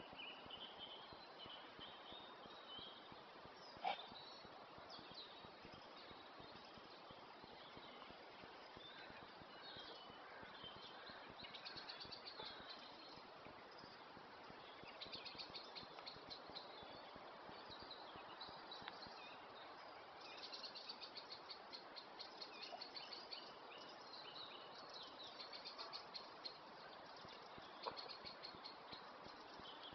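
Faint dawn chorus of songbirds, including song thrush and blackbird, singing short repeated phrases. A single sharp click about four seconds in.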